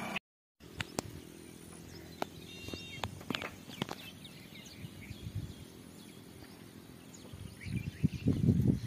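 Faint rural outdoor ambience with a few short bird chirps and scattered light clicks; near the end, a run of louder, irregular low-pitched noise.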